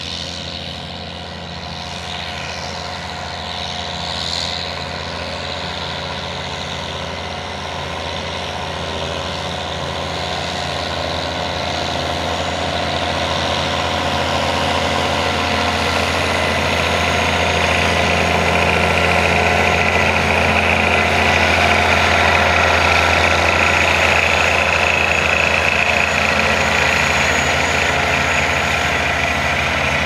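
Sugarcane harvester's diesel engine and cutting machinery running steadily under load with a deep hum, growing louder as the machine comes closer.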